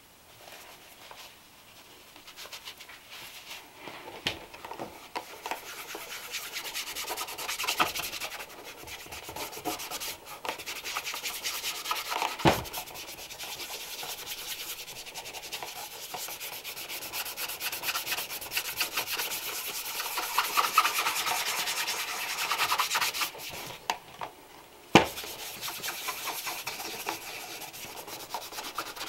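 Brisk back-and-forth brushing of a leather shoe's upper, in rapid scratchy strokes, with a short pause and a couple of sharp knocks along the way.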